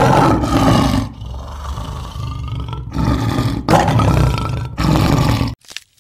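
A large animal roaring: a loud roar, a quieter, lower stretch in the middle, then a second loud roar that cuts off suddenly near the end.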